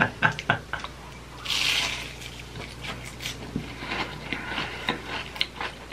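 Wet chewing and lip-smacking of a hash brown topped with cheese sauce and ketchup: a run of small irregular wet clicks, with a short breathy hiss about a second and a half in.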